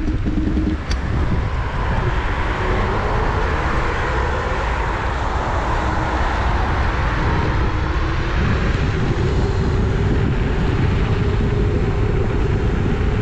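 Riding a Dualtron electric scooter: steady wind buffeting on the microphone and low rolling rumble. A faint whine rises slightly in pitch in the second half.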